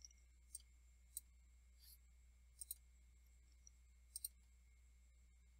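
Faint computer mouse clicks over near silence: several short clicks about a second apart, some in quick pairs.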